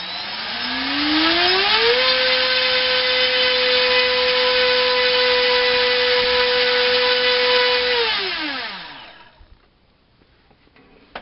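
Turnigy D2826 2000kv brushless outrunner motor driving a propeller on a thrust-test stand. It spools up with a rising whine over about two seconds, holds a steady high-pitched whine for about six seconds, then winds down.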